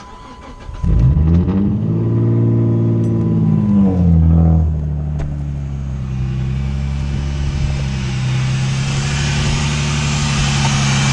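Chrysler 300's 3.5-litre V6 starting: it catches about a second in, flares up in revs for a few seconds, then drops to a steady idle. This is the first start after a bad fuel injector was replaced and the fuel pump relay plugged back in.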